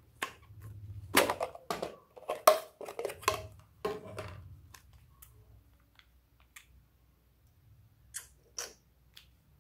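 Plastic tubes and containers handled by hand: a cluster of sharp clicks and taps in the first few seconds, then mostly quiet, with two short sharp sounds near the end as a small tube is squeezed out.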